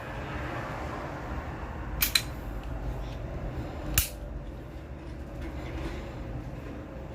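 Sharp mechanical clicks from handling a Glock 19 pistol: a quick double click about two seconds in, then a single, louder click about two seconds later, over a steady low background noise.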